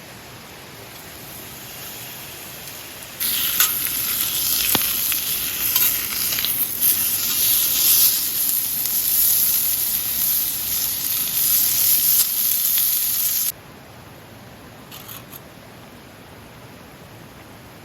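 Food frying, a loud sizzle that starts abruptly about three seconds in and cuts off suddenly about ten seconds later. Before and after it there is only a faint steady hiss.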